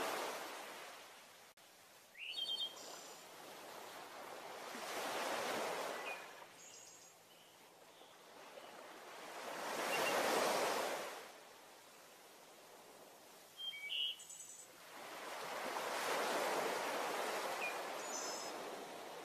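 Ocean surf washing in slow swells that rise and fall about every five to six seconds, with small birds chirping briefly several times between the swells, likely a recorded nature ambience.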